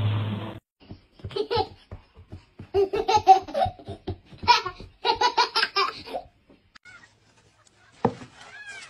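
A toddler laughing in repeated bursts of giggles and belly laughs. Near the end a sharp knock, then a few short high mews from a kitten.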